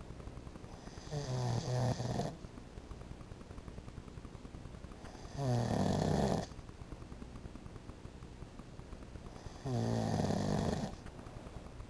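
A sleeping man snoring: three snores, each lasting about a second, roughly four seconds apart.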